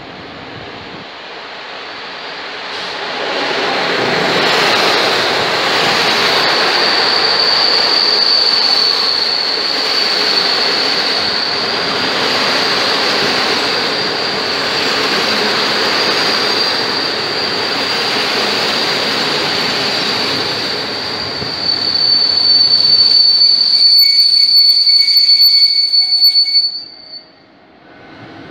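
Passenger train hauled by an EP09 electric locomotive running through the station, with rail noise that builds over the first few seconds and a high, steady squeal over it. The noise grows louder about three-quarters of the way through, then cuts off suddenly near the end.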